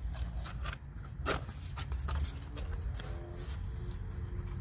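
Scattered light clicks and knocks of brake parts being handled, over a steady low rumble.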